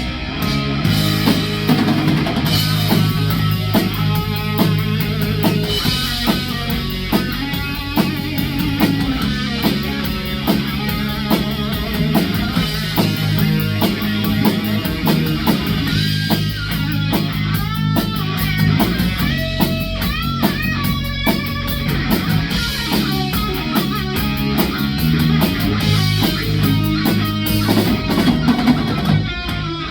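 Rock trio playing an instrumental section: a lead electric guitar line with pitch bends over steady bass guitar and drum kit.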